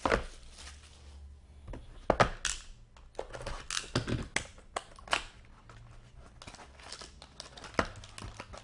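Wrapper of a 2017-18 Upper Deck SP Game Used hockey card pack being torn open and crinkled in the hands, with cards handled. Irregular sharp crackles and snaps, the loudest near the start and about two, four, five and eight seconds in.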